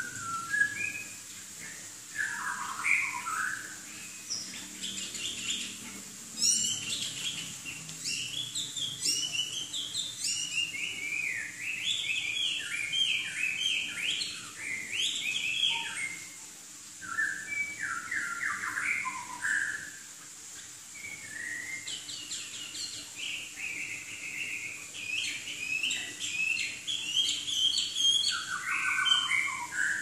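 Chinese hwamei (Garrulax canorus) singing a long, varied song of rapid runs of repeated notes, with two short lulls near the middle.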